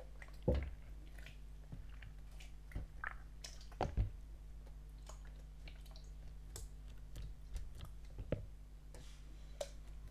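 Wet, sticky slime being squished and worked, with scattered clicks and small pops at an uneven pace; the sharpest come about half a second in and about four seconds in.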